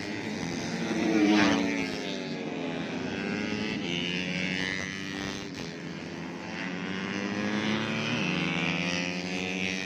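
130cc four-stroke underbone racing motorcycles running at high revs, several engines heard at once and rising and falling in pitch. The loudest, about a second in, is a bike passing close, its pitch dropping as it goes by.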